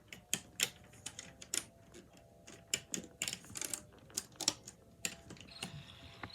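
Irregular sharp clicks and clacks of hard plastic as the Fisher-Price Rainforest crib toy is handled around its battery compartment. A faint steady hiss comes in near the end.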